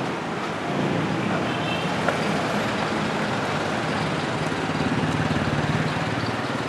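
Skateboard wheels rolling on rough concrete, a steady rumble.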